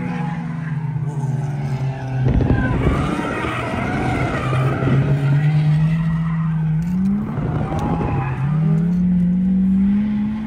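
Drift car's engine heard from inside the cabin, revving up and down as the car slides through a corner in tandem. From about two seconds in, tyres squeal and skid, loudest in the middle. The engine note climbs steadily, drops off sharply about seven seconds in, then climbs again.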